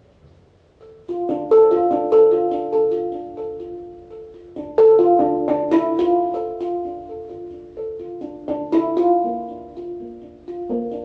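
Instrumental background music with piano-like notes. It is quiet for about a second, then chords are struck about a second in, again near five seconds and near nine seconds, each fading away.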